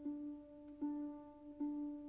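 Background music: a single note repeated at an even pace, about one note every 0.8 seconds, each starting sharply and fading.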